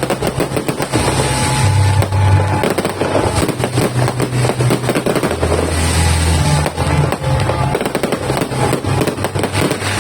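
Rapid, continuous bangs and crackling from a multi-shot fireworks barrage, with music playing underneath.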